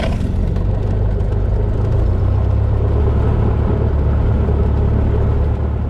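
Cessna 172's piston engine and propeller running steadily just after start-up, heard loud from inside the cockpit.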